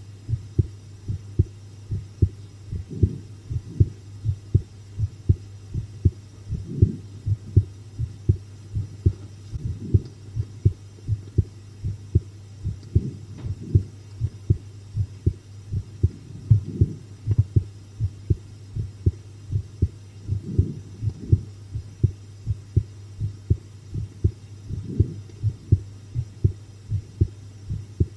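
A human heartbeat recorded close up: a steady, even train of low thumps. A constant low hum runs beneath it.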